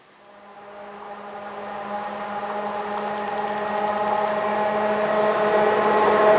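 A train approaching on an electrified main line, growing steadily louder, with a steady low hum and several higher steady tones above it.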